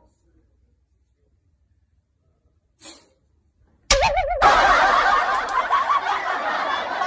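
Near silence, then about four seconds in a sudden loud burst of laughter that keeps going.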